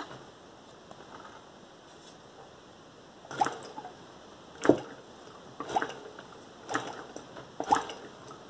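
Spark test on a scooter engine, its plug out of the head and capped, as the engine is turned over by hand: six short sharp snaps come about a second apart, starting about three seconds in after a quiet stretch. The engine has ignition spark.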